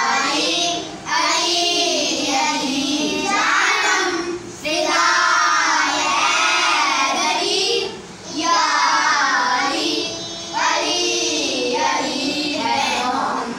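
A group of children singing a manqabat, a devotional poem in praise of Imam Ali, together in sung phrases broken by short pauses every few seconds.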